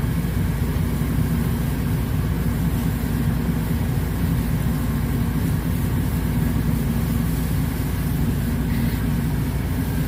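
A large vehicle engine running steadily at idle, a low even rumble, most likely the fire engine driving the pump for the hose lines.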